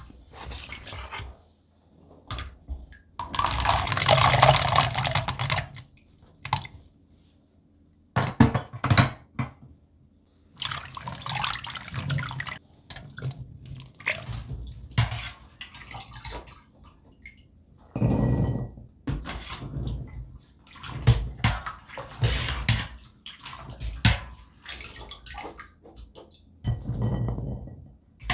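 Blueberries being washed in a stainless steel kitchen sink: water splashing and sloshing in irregular bursts, with drips, as a mesh strainer of berries is dipped and lifted.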